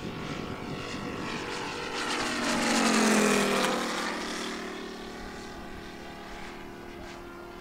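Giant-scale RC Focke-Wulf Fw 190's Moki radial engine and propeller flying past: the sound swells to its loudest about three seconds in, the pitch drops as the plane goes by, and then it fades as the plane climbs away.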